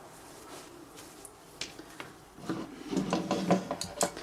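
Handling noise from a Dobbs bar and its bar bumper being picked up and moved: soft rubbing with several short clicks, starting about halfway through after a quiet first half.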